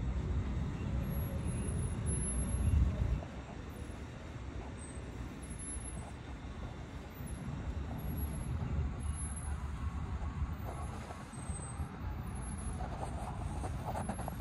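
Low outdoor rumble, louder for the first three seconds and then steadier and softer, with faint high chirps over it; no carillon bells are heard ringing.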